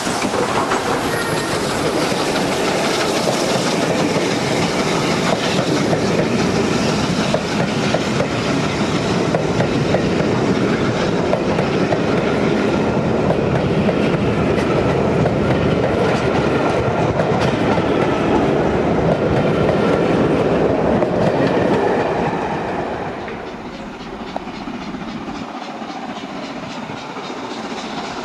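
Steam-hauled express behind Southern Railway N15 'King Arthur' class locomotive 30777 Sir Lamiel passing close at speed, the locomotive then its coaches rushing by with wheels clattering over the rail joints. The noise drops away after about twenty-two seconds and stays quieter to the end.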